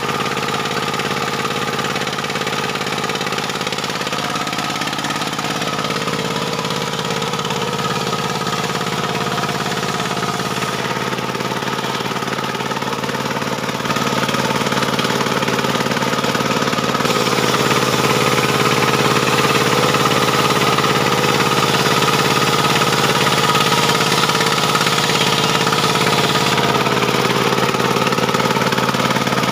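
Engine of a mobile circular sawmill running steadily, driving a large circular saw blade that rips sentang timber into boards. The sound steps louder about halfway through.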